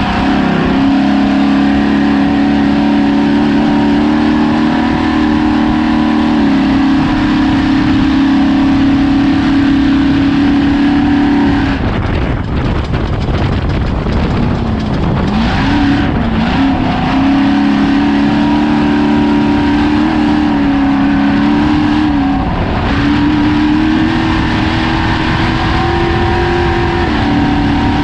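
Ford Ranger desert race truck's engine running hard at steady high revs. About twelve seconds in it drops off into a rough, noisy stretch of about three seconds, then pulls again with the pitch dipping and rising.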